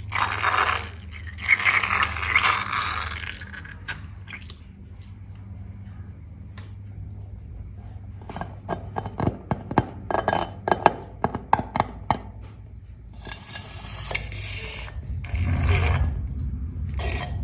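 Slime being squished and worked by hand: bursts of wet scraping and squelching, with a fast run of sharp sticky clicks and pops in the middle as the slime is pressed and pulled apart.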